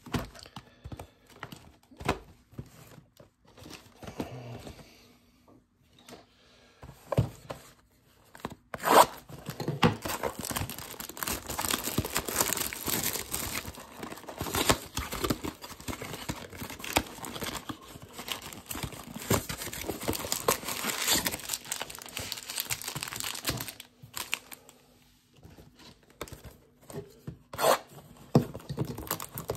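Trading-card blaster box packaging being handled and torn open: scattered taps and clicks at first, then from about nine seconds in a long stretch of tearing and crinkling of wrapping and cardboard, which dies down near the end.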